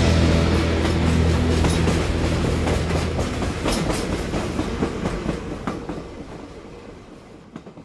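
The song's final low chord dies away in the first second or two. It leaves a noisy clatter of irregular clicks and knocks that fades out gradually.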